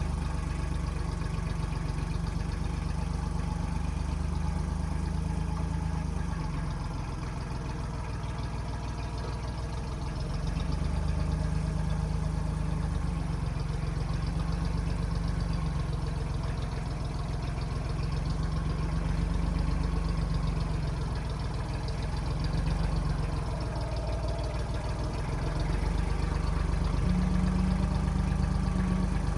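A 1995 Kubota backhoe's diesel engine running steadily, its note easing off for a few seconds and picking up again as it works.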